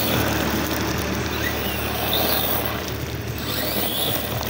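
A tractor's diesel engine running steadily and slowly fading as it moves off, mixed with the hiss of an RC monster truck's tyres spraying gravel.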